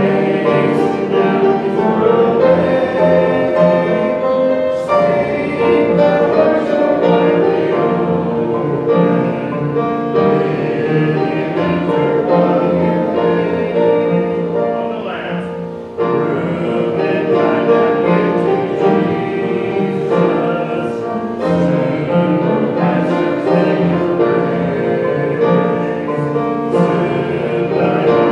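Church congregation singing a hymn with piano accompaniment, with a short dip about halfway through before the next line comes in.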